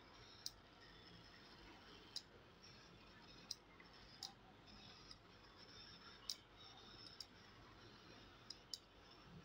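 Small push-button switches on a hand-held remote-control transmitter clicking as they are pressed: about eight short, sharp clicks at uneven intervals, two close together near the end, over a faint hiss.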